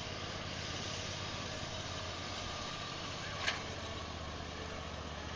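An engine running steadily, with one sharp click about three and a half seconds in.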